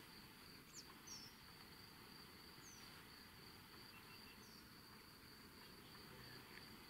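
Faint, steady high-pitched insect trill, cricket-like, with four short high falling chirps in the first half.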